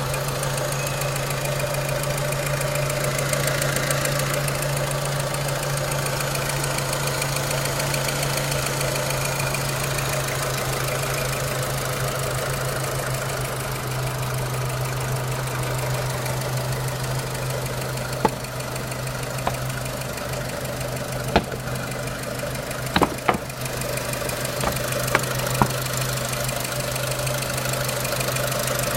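Renault Clio 3 1.4 16V four-cylinder petrol engine running steadily at idle with a knocking clatter, which the owner wonders may come from 5W40 engine oil that is too thin. In the second half a few sharp, separate clicks stand out.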